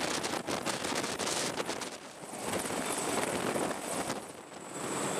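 CH-53E Super Stallion hovering low overhead, its rotor downwash buffeting the microphone as a gusting hiss that swells and dips, with a faint thin high whine.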